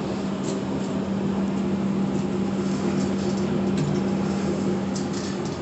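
Steady droning hum and rush of an indoor shooting range's ventilation system, the hum dropping out near the end, with a few faint clicks of a pistol being handled at the shooting bench.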